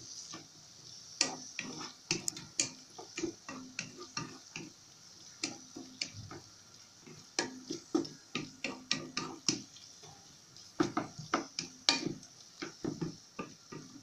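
Wooden spatula stirring and scraping a chopped tomato, pepper and onion mixture in a nonstick frying pan, knocking against the pan in quick irregular runs of taps with short pauses between.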